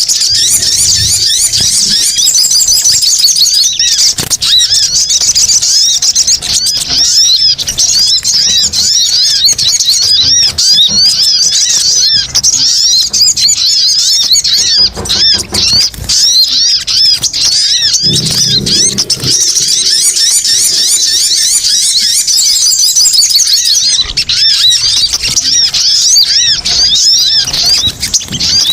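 Lure recording of sogon (sogok ontong, a spiderhunter) calls: a continuous, high-pitched, rapid chattering of many overlapping notes, the excited 'ribut' calling used to pull wild birds in.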